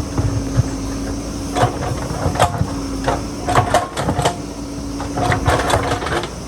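JCB backhoe loader's diesel engine running steadily under working load, with repeated sharp clanks and scrapes as the bucket digs into rock and soil.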